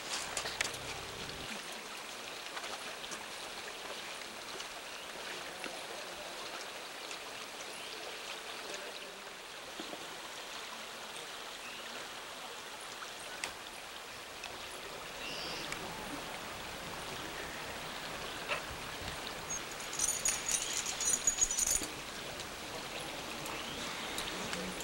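Steady rushing of a flowing river, with a few footsteps on rock at the start and a brief high chirping near the end.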